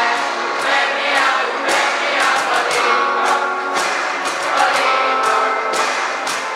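A class choir of young students singing an English song together, accompanied by acoustic guitar and a cajón keeping a steady beat.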